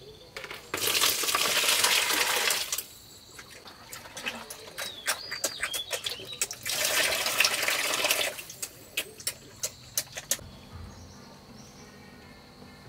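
Liquid feed poured from a bucket splashing into a plastic basin for about two seconds, then pigs eating from it with a run of wet smacking clicks. A second stretch of splashing comes in the middle, followed by more clicks.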